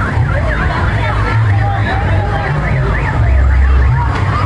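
Fairground din: many overlapping electronic siren-like warbles, each rising and falling several times a second, over a heavy low rumble.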